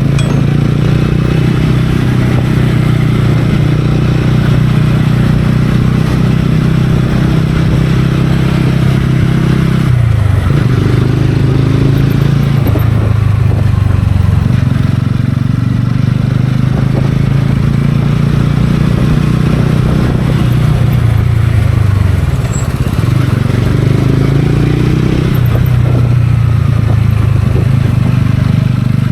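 TVS Ronin's single-cylinder engine running steadily while the motorcycle is ridden. The engine note dips briefly about ten seconds in and again about two-thirds of the way through, then settles back.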